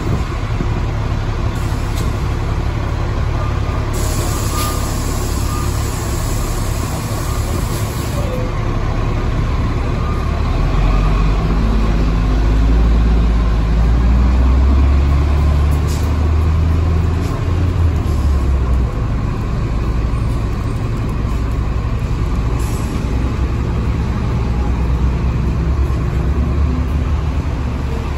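2007 Orion VII diesel transit bus idling with its steady low engine rumble. A hiss of compressed air runs from about four to eight seconds in, and the engine rumble grows louder from about ten to nineteen seconds in.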